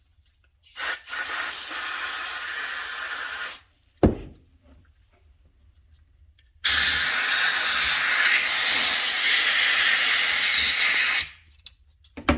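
Compressed-air blow gun blasting through a cut-open engine oil pickup tube to clear the debris clogging it: two long, steady hisses of about three and four and a half seconds, with a sharp knock between them.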